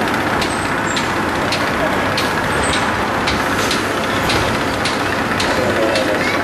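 Busy outdoor crowd noise: a loud, steady din with faint voices and a regular clicking about twice a second.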